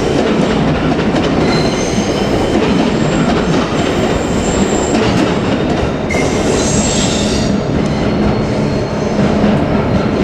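A train passing close by: steady, loud running noise of wheels on the rails, with brief high-pitched wheel squeals coming and going.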